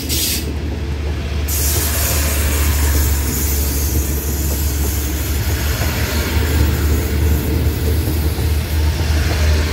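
State Railway of Thailand rapid train 171's passenger coaches rolling past close by, a steady low rumble of wheels on the rails with a hiss that grows stronger about a second and a half in.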